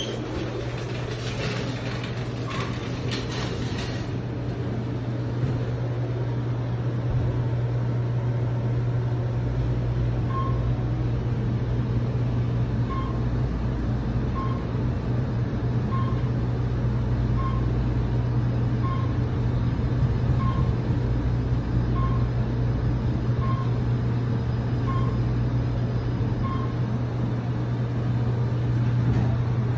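Elevator car running between floors: a steady hum with a low rumble under it, and short high beeps about every second and a half through the middle stretch. There are a few clicks and knocks in the first few seconds.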